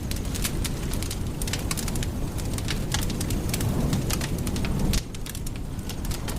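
Campfire crackling with many sharp pops over a steady low rumble; the low rumble drops off abruptly about five seconds in.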